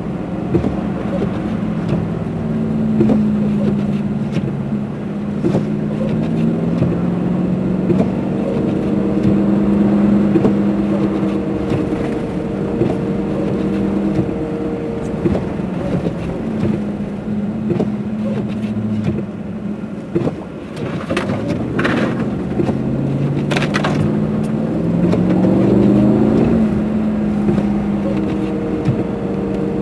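Car engine running, its pitch slowly rising and falling with speed, with the tyres crunching and crackling through deep, heavy snow. A couple of sharper cracks stand out about two-thirds of the way in.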